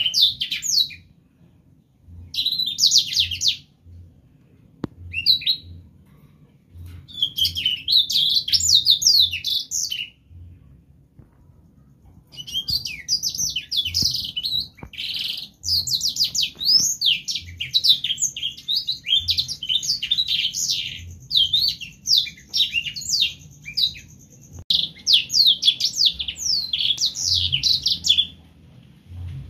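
Young blackthroat (black-throated canary) singing in phrases of rapid, high sweeping notes separated by short pauses, with one long unbroken run of song in the middle.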